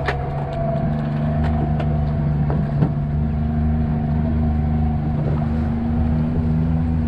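Boat engine running steadily at an even pitch, with a few sharp clicks and knocks on top.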